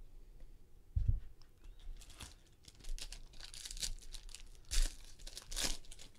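Foil wrapper of a Bowman Chrome jumbo card pack being torn open by hand and crinkled as the cards are pulled out, in a run of crackling rips. A dull thump about a second in.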